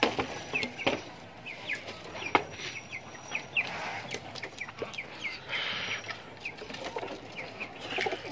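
Birds in a pigeon loft: short high chirps about twice a second, a few sharp knocks, and a brief rush of wing flapping about five and a half seconds in.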